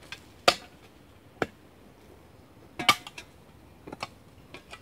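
Steel spade chopping into hard clay soil, sharp metallic strikes with pauses between them. The loudest come about half a second and a second and a half in, a quick double strike comes about three seconds in, and lighter knocks follow near the end.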